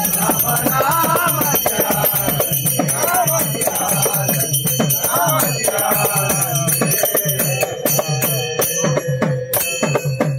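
Men singing a devotional bhajan, with small hand cymbals ringing over a steady rhythm. Near the end the singing drops away and the sharp rhythmic strokes of the percussion take over.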